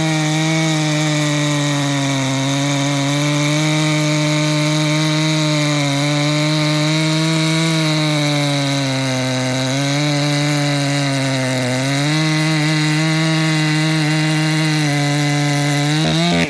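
Ported Echo CS-590 chainsaw with a 24-inch full chisel skip chain running near full throttle while cutting wood. Its pitch sags a little under load about two seconds in and again for a few seconds past the middle, then picks back up.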